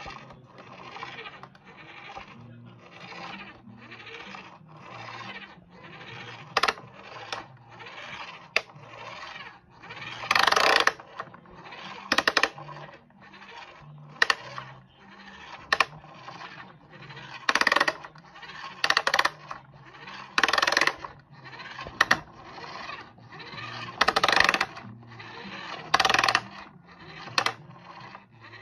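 Plastic Postman Pat toy van rolled back and forth on a laminate floor: its small plastic wheels rumble and rattle in a steady rhythm of roughly one stroke every 0.7 s. From about ten seconds in, some strokes bring much louder clatters.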